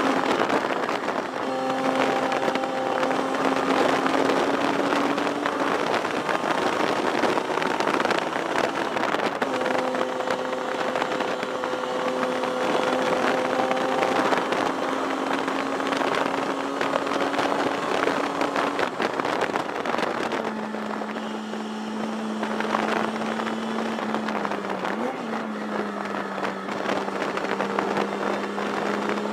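1973 Datsun 240Z's straight-six race engine running hard, heard from inside the stripped cockpit over heavy wind and road noise. Its pitch climbs slowly and drops back several times, and holds lower and steadier in the last third.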